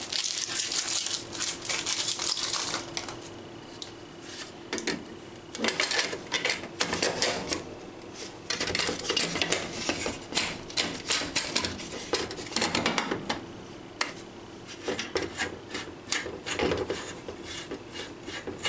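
Thin plastic protective film crinkling as it is peeled off and crumpled, for about the first three seconds. Then comes a run of sharp plastic clicks and knocks, in clusters, as the hard-plastic quick-release mount cradle of a Garmin Echomap chart plotter is turned over and handled on the workbench.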